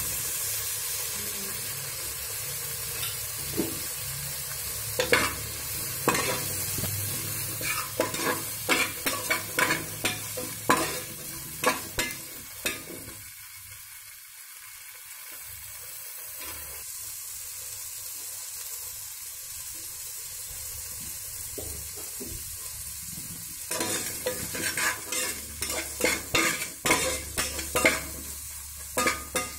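Kidney beans, potatoes, onions and green chillies sizzling in hot oil in a pressure cooker. A spatula scrapes and knocks against the pot in two spells of stirring, the second near the end.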